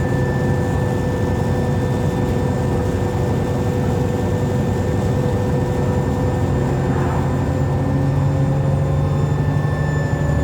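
Onboard sound of an Alexander Dennis Enviro400 double-decker bus under way: a steady low engine drone with a high turbocharger whistle and a whine from the differential. A tone in the whine rises slightly near the end.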